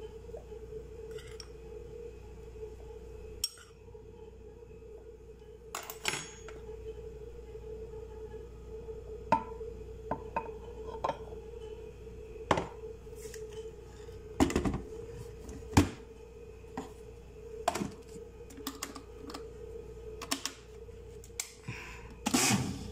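Scattered knocks and clinks of a glass blender jar being handled as flour goes in, over a steady low hum. Near the end the blender's motor starts up.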